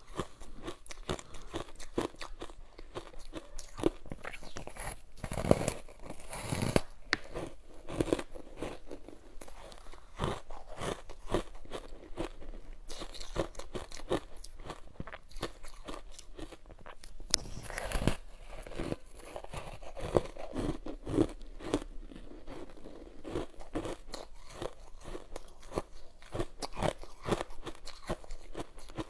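Biting and chewing matcha-powdered ice: dense, rapid crunching, bite after bite without a pause, with a few heavier crunches about five and eighteen seconds in.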